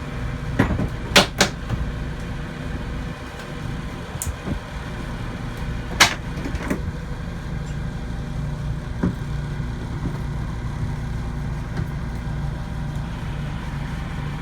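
Service truck engine running steadily with a low hum, while a crane works. A few sharp metal clanks come about a second in, and a louder one about six seconds in.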